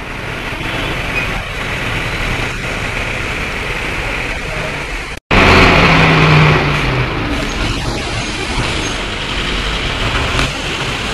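Busy road traffic at a crowded junction: the engines of trucks, auto-rickshaws and cars run together in a steady noise. The sound cuts out for a moment about halfway through, then a nearby engine hum is louder for a second or two.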